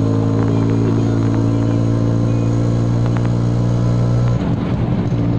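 Engine of a moving road vehicle running at a steady speed, a constant low drone that wavers briefly about four seconds in.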